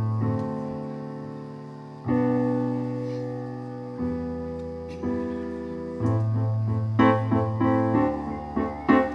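Keyboard playing an instrumental break in a live band song: chords struck about every two seconds and left to ring and fade, turning into busier, rhythmic playing about seven seconds in.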